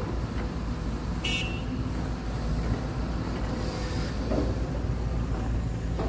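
Sumitomo 210 excavator's diesel engine running steadily while it swings and loads a dump truck, with a short high-pitched squeak about a second in.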